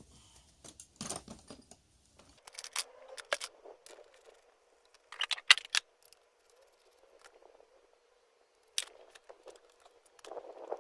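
Scattered clicks, knocks and rattles of tools and parts being handled as a Honda Zoomer scooter is taken apart, with one sharp click about halfway through standing out.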